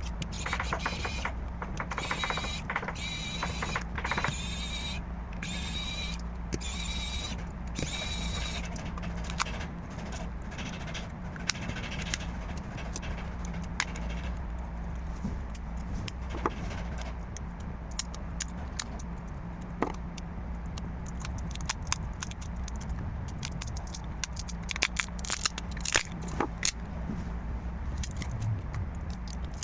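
Small tools working on a smartphone during disassembly: a run of short squeaky scraping strokes in the first several seconds, then scattered light clicks and scrapes, over a steady low hum.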